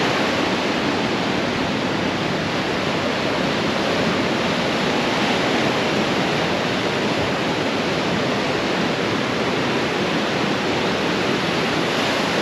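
Ocean surf breaking on rocks and sand below a cliff: a steady, even rush.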